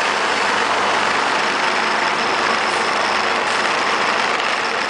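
A motorcycle riding through city streets, heard from a camera mounted on the bike: a steady, even rush of engine, wind and road noise with no breaks.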